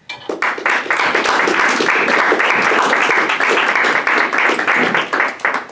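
Audience applauding. The clapping starts just after the opening and dies away near the end.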